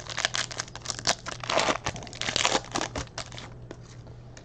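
Football trading cards being handled and flipped through, crinkling and rustling in irregular strokes that die down after about three and a half seconds, over a faint steady low hum.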